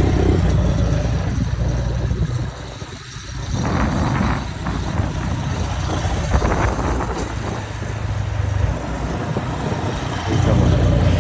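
Volvo FH semi-truck's straight-six diesel running on the road, a steady low rumble from its exhaust that drops away briefly about three seconds in.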